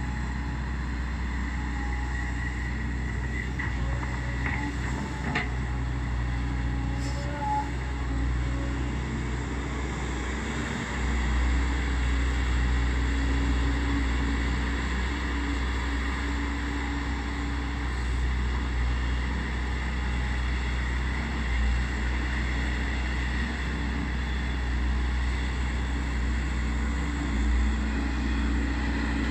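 Volvo EC210B excavator's diesel engine running steadily, getting louder and deeper about eleven seconds in.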